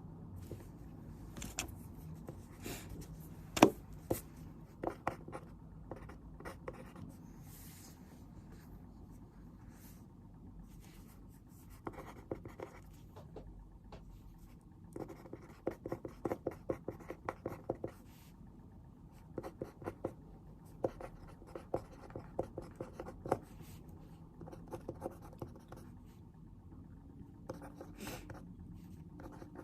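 Pen writing on paper at a desk: bursts of quick scratching strokes a second or few long with pauses between, and one sharper tap about three and a half seconds in. A steady low room hum underneath.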